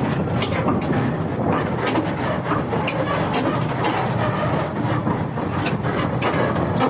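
Heavy diesel engine of a crawler excavator running steadily, with frequent irregular sharp metallic clanks on top.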